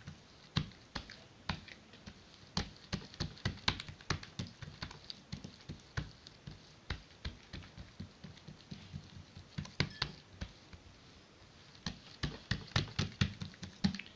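Oiled hands patting and pressing leavened msemen dough thin on a tabletop: irregular soft slaps and taps, several a second, thinning out briefly about two-thirds of the way through.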